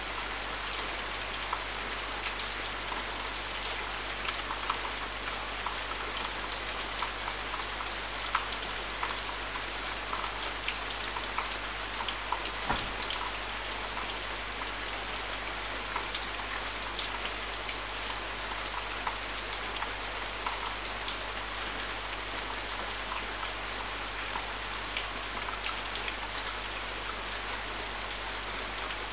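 Rain falling steadily, with many individual drops ticking close by and one sharper tap a little before halfway through.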